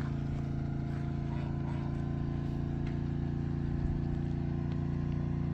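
Generator engine running at a steady speed, a constant even hum with no change in pitch.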